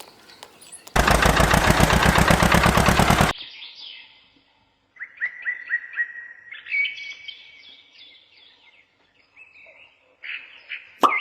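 Small birds chirping in short, repeated, falling notes. About a second in, a loud rapid rattle lasts a little over two seconds.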